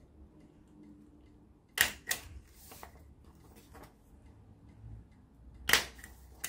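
A handheld stapler clacking: two sharp clicks close together about two seconds in and another near the end, with fainter taps and paper rustling as it is worked into a folded paper kite.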